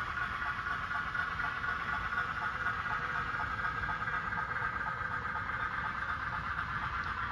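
N scale model freight train running on the layout: a steady mechanical hum with a low rumble underneath.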